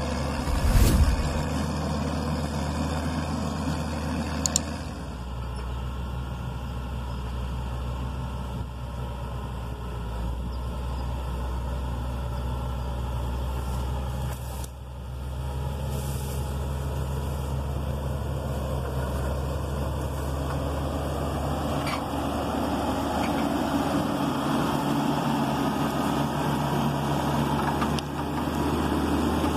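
Caterpillar 120K motor grader's diesel engine running steadily while the blade cuts into a roadside bank. There is a sharp thump about a second in.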